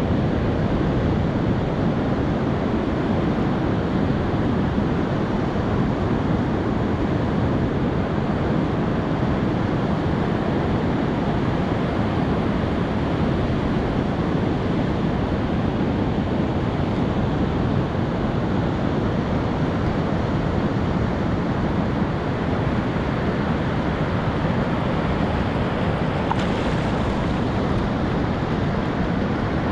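Steady wash of ocean surf breaking on a sandy beach, with wind on the microphone.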